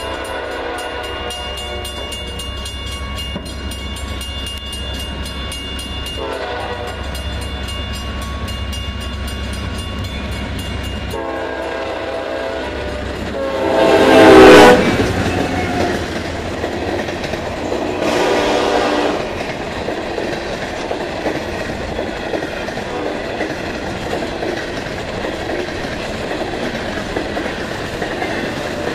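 Diesel freight train sounding its horn for a grade crossing in several blasts, the loudest about 14 seconds in as the locomotives pass. Then the freight cars roll by with a steady clatter of wheels on rail.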